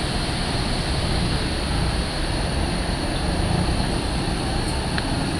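Griffon 12000TD hovercraft running on its pad, its engines and ducted fans making a steady rumble with a continuous high whine.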